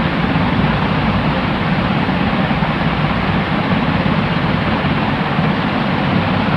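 Steady white noise: an unchanging hiss with no rhythm or events, its energy mostly below the high treble.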